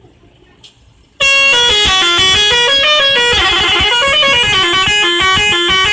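A bus's telolet horn, a set of multi-tone horns, playing a tune of quickly stepping notes up and down. It starts suddenly about a second in and is very loud.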